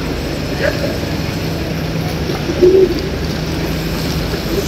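Railway station platform ambience: a steady low hum under a wash of noise, with a few brief snatches of voices, the loudest about two and a half seconds in.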